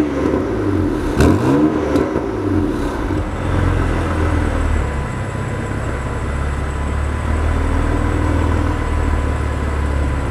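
BMW M3 F80's twin-turbo inline-six through a Fi Exhaust valved catback with catless downpipes, revved twice in quick rises and falls in the first two seconds, with a few sharp cracks as the revs drop, then settling to a steady idle.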